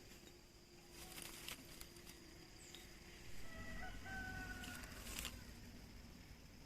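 A rooster crowing faintly, one drawn-out crow starting about three and a half seconds in. A few faint clicks are heard around it.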